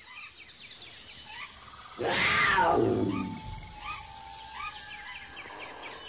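A big cat roars once about two seconds in, one loud call falling in pitch, over a background of birds chirping and trilling, with a held whistle near the end.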